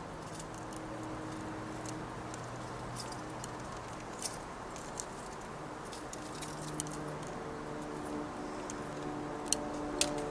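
Mourning dove pecking at seeds on a wooden stump feeder: light, scattered clicks and ticks, with two sharper clicks near the end, over a steady low hum.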